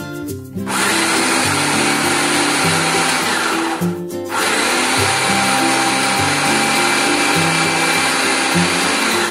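Electric blender running, grinding the peanut-and-chili sambal pecel mixture. It starts a little under a second in, stops briefly about four seconds in, then runs again. Guitar background music plays throughout.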